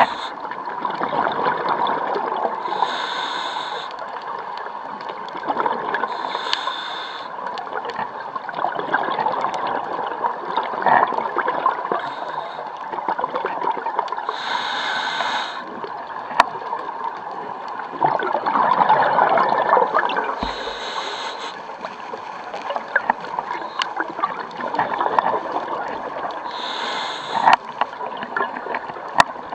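Scuba diver's regulator breathing underwater: a hiss with each inhalation every few seconds, with the bubbling and gurgling of exhaled air in between.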